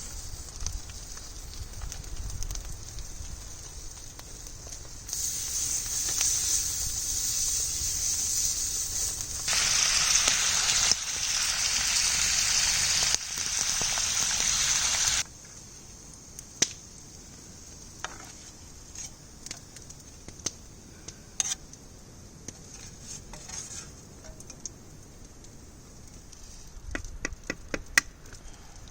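Bacon and an egg frying in a pan over a campfire, a loud sizzle that starts abruptly about five seconds in, grows louder in steps and cuts off suddenly about fifteen seconds in. After that only the fire's crackle is left, with scattered sharp pops.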